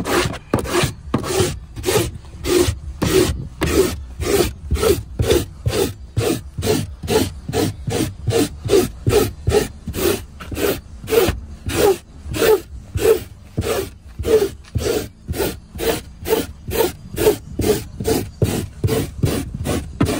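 Small handheld detailing tool scrubbed hard back and forth over car carpet at about three strokes a second, a steady rasping rub as it loosens embedded lint and hair from the pile.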